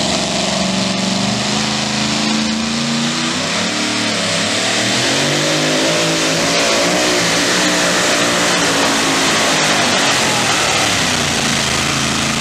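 Super modified two-wheel-drive pulling truck's supercharged engine running at full power as it drags a weight-transfer sled under heavy load. Its pitch dips about four seconds in and then climbs again.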